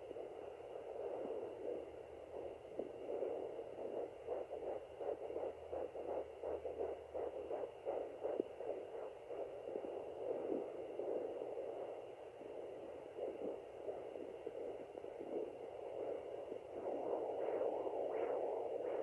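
Fetal doppler monitor heard through its speaker: a steady whooshing hiss. For several seconds in the first half it carries a fast, even pulsing, the kind a fetal heartbeat makes on a doppler. It grows louder and rougher near the end.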